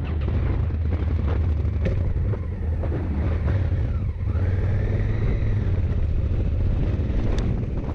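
Honda Africa Twin adventure motorcycle running steadily at road speed: a low engine drone under steady wind rush.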